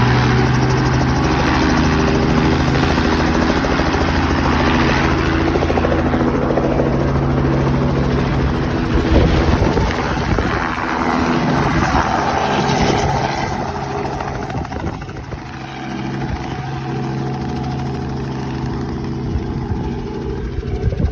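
Helicopter engine and rotor running steadily, a little louder about nine to thirteen seconds in and quieter in the second half.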